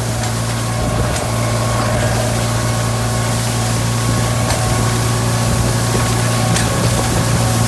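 Farm tractor engine running steadily while pulling a straw baler, a constant deep hum under a loud even rushing hiss, with a few faint ticks.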